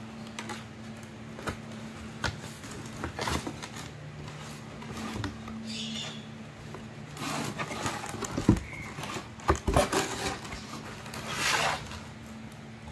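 Cardboard shoe box and its paper-board lid handled by hand: scattered taps and knocks on the box, with rustling and sliding of cardboard that grow busier in the second half.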